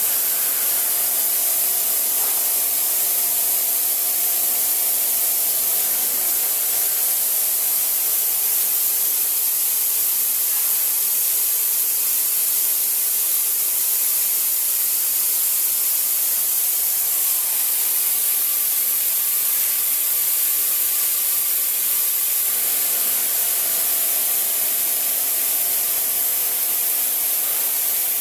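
A CNC machine dry cutting and side milling with a BT50 right-angle head. A steady, loud hiss runs throughout, and faint whining tones from the cut come in over the first few seconds, fade, and return near the end.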